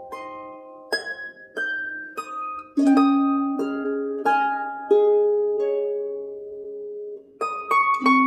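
Background music: a gentle melody of plucked-string notes, each fading after it is struck, with fuller chords about three seconds in and again near the end.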